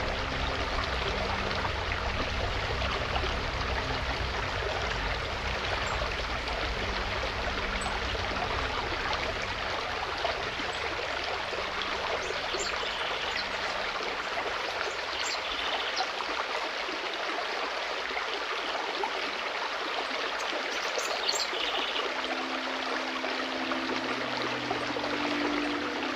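Forest stream flowing steadily, a continuous rush of water. Soft sustained background music fades out under it and comes back in near the end.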